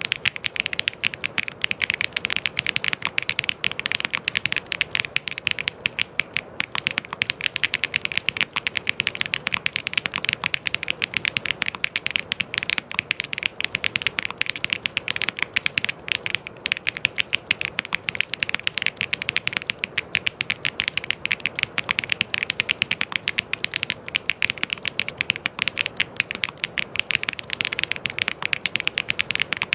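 Continuous fast typing on a mechanical keyboard: a dense, steady stream of key clicks.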